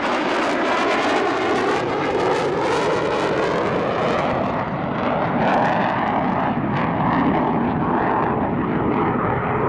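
Jet noise from an F-4EJ Kai Phantom II's twin J79 turbojets as it passes close by, with a phasing sweep in the roar. After about four and a half seconds the high hiss dies away and a duller rumble is left as the jet moves off.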